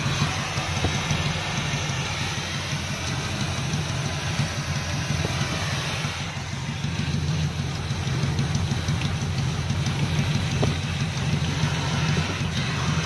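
Oxy-fuel gas torch burning against an exhaust pipe: a steady hiss over a continuous low drone.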